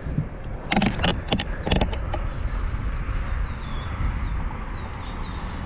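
A quick run of sharp knocks and clatters in the fishing boat about a second in, as gear or the camera is handled. This sits over a steady low rumble of wind on the microphone.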